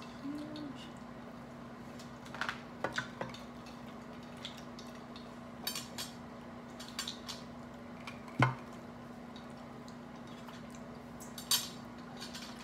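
Scattered clicks, clinks and knocks of a shell-on seafood meal at the table: shells, dishes and glasses being handled. The loudest knock comes about eight seconds in. A steady low hum runs underneath.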